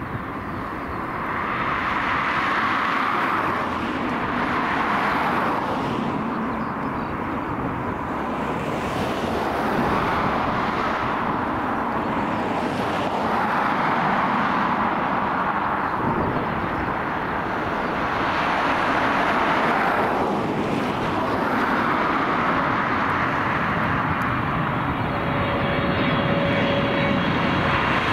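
Boeing 777-300ER's two GE90-115B turbofans on final approach at low power: a continuous rush of jet noise that swells and ebbs every few seconds as the airliner draws nearer. A thin steady tone joins near the end.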